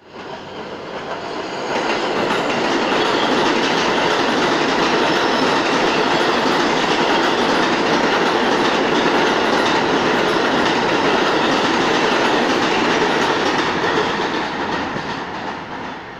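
Stainless-steel New York City Subway train passing an elevated station platform on the adjacent track, wheels running on the rails. The sound builds about two seconds in, stays loud through most of the pass, then fades near the end as the train moves off.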